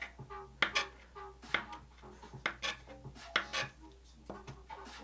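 Steel palette knife scraping and tapping against thick wet gesso on paper: a string of short, sharp scrapes and clicks, mostly in the first three and a half seconds.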